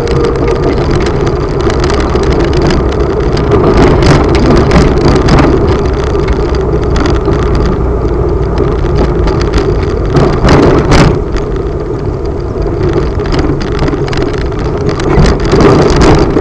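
A motor vehicle running steadily as it travels along a rough dirt road, with occasional knocks and jolts from the bumpy surface.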